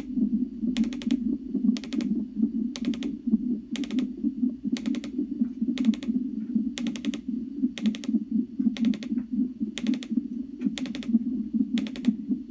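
Fetal heart monitor's Doppler speaker playing the baby's heartbeat as a steady, rapid whooshing pulse, around 125 beats a minute. Sharp ticks come about once a second.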